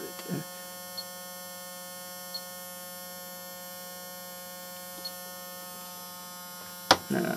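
Oral-B electric toothbrush motor running steadily under its controller's PWM drive, almost full on and at full speed: a steady hum with many overtones. A few faint ticks, and a sharp click near the end.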